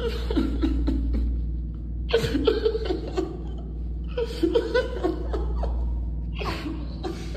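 A person laughing in several bursts over quiet background music with a steady low bass.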